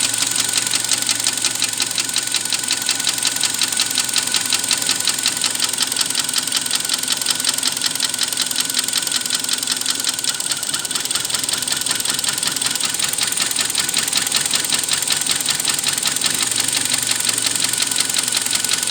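Kia Sportage III engine idling hot, with a fast, even ticking knock over the running. It is a hot-engine knock that the owner thinks calls for either a new timing chain or an engine overhaul.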